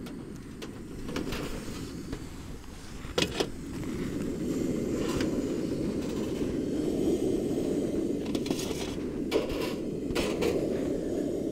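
Backpacking stove burner running steadily under a Bemco backpacking oven, a little louder from about four seconds in. Over it, a few short metallic clinks and scrapes as the pizza pans are slid out of the oven's racks.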